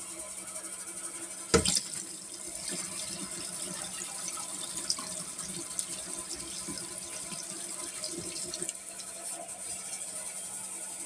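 Water being poured into a dishwasher's tub, splashing unevenly for several seconds. A sharp knock comes about a second and a half in.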